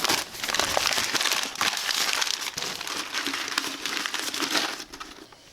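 Paper being crumpled and stuffed into a charcoal jiko as kindling: a dense crinkling and crackling that dies away near the end.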